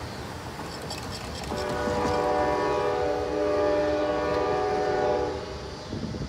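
Locomotive air horn sounding one long blast, a chord of several steady tones, starting about a second and a half in and cutting off about five seconds in. Road traffic passes at the crossing.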